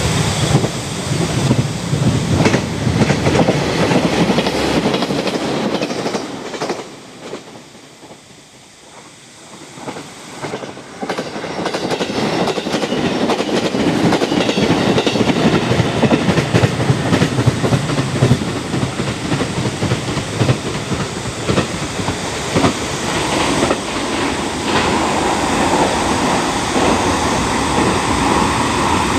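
A train running past on the line, its wheels clattering over the rail joints. The sound dies away about a quarter of the way in, then builds again as a train passes loudly for the rest.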